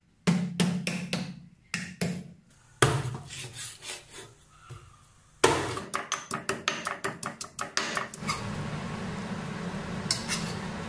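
Kitchen sounds in quick succession. First a knife chops eel on a wooden chopping board in separate knocks. Then a pestle pounds in a granite mortar, about three to four strokes a second, and from about eight seconds in the eel curry bubbles and sizzles steadily in a wok over the burner.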